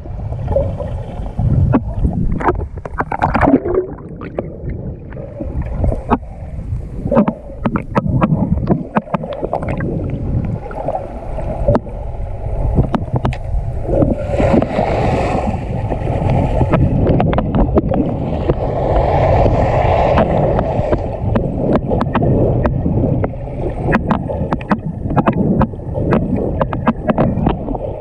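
Muffled underwater water noise, a low rushing rumble scattered with many small clicks and knocks. Two short stretches of hiss come about halfway through and again a few seconds later.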